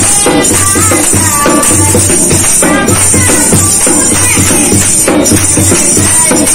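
Women singing a devotional kirtan bhajan to a hand-beaten dholak. A steady drum beat runs under the song, with a continuous metallic jingle from hand percussion.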